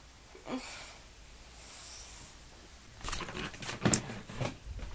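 Handling noise from a handheld camera being carried while walking: irregular knocks, clicks and rustles starting about three seconds in, after a quiet stretch with one faint short sound near the start.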